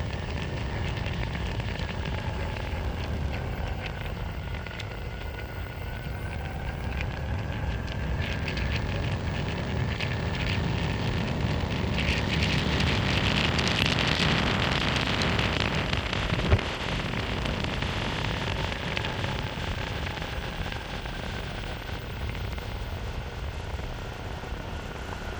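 Meepo Hurricane electric skateboard riding on asphalt: the honeycomb wheels give a steady crackly rolling noise, with a faint motor whine that rises and falls with speed. It grows louder around the middle and there is one sharp click a little past halfway.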